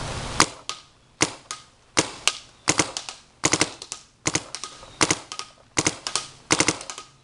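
Dye DM14 electronic paintball marker firing quick strings of two to four sharp pops, with short pauses between the strings.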